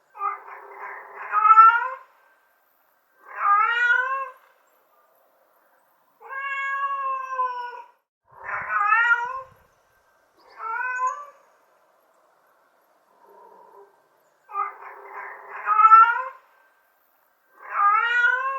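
Domestic cat meowing over and over, about seven meows a second or two apart. Most rise in pitch toward the end, and one is longer and held level.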